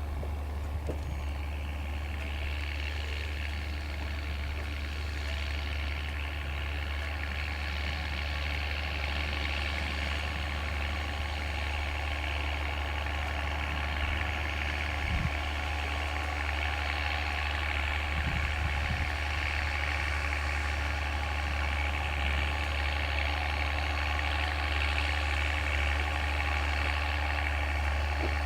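McCormick tractor engine running steadily under load while pulling a plough, a deep continuous drone that grows slightly louder near the end, with a couple of brief knocks partway through.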